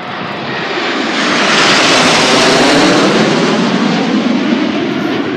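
A formation of nine BAE Hawk jet trainers passing low overhead, their Adour turbofan engines making a broad jet rush. The sound swells to its loudest about two to three seconds in, then eases off a little.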